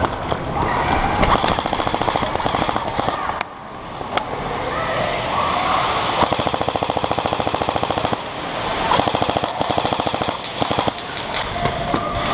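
Airsoft guns firing full-auto in long rapid rattling bursts, several of them one after another, some overlapping.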